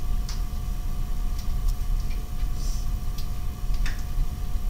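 Pen writing on paper: a few short, faint scratching strokes over a steady low hum.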